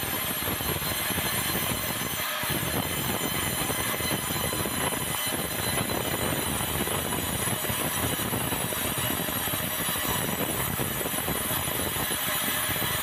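Sawmill saw running and cutting a large, hard, dry bengkirai (yellow balau) timber: a loud, steady mechanical din with a thin high whine over it.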